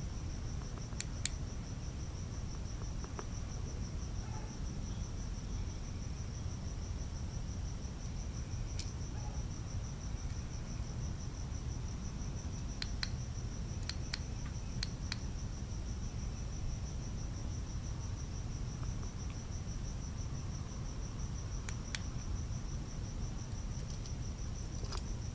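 Crickets trilling continuously in a high, steady pulsing chirr, over a low steady rumble, with a few faint clicks.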